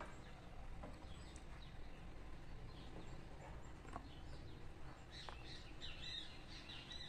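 Faint chirping of small birds over a steady low background rumble. The chirps come thicker and busier in the last couple of seconds.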